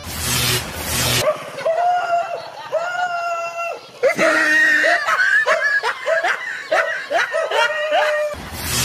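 A dog barking repeatedly and people laughing, the laughter thickest from about four seconds in.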